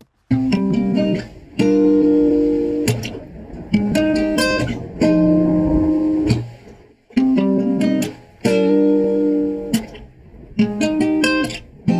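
Guitar sample played back through a denoiser plugin: phrases of plucked notes and chords with short breaks between them, and the background hiss much reduced.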